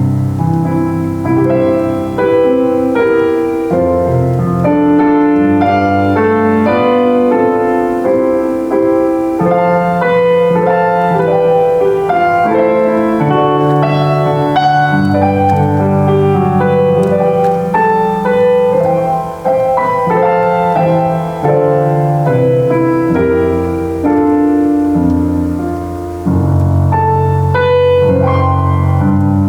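Solo piano playing a worship song: a melody over full chords and a held bass line, in flowing phrases.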